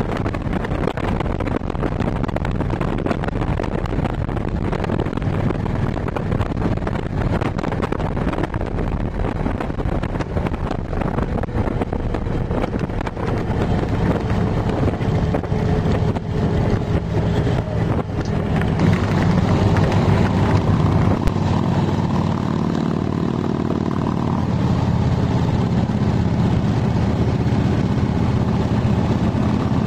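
Motorcycle running at road speed, its engine drone mixed with wind rushing over the microphone. About two-thirds of the way through it gives way to a louder, steadier low drone of engine and road noise heard from inside a car cabin.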